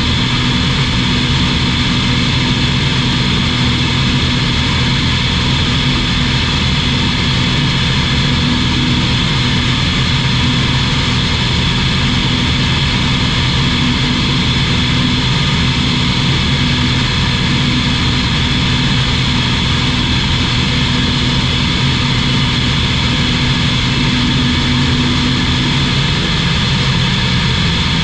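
Steady drone of a CZAW SportCruiser light aircraft's Rotax 912 flat-four engine and propeller in level flight.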